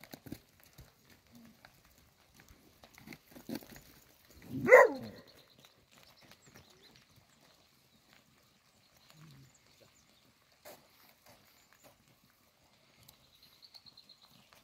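Faint scattered steps and scuffs of a cattle herd moving over a dirt track, with one short, loud animal call about five seconds in.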